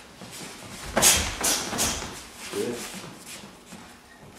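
Boxing gloves striking and blocking in a quick run of about four hits starting about a second in, the first with a dull thud.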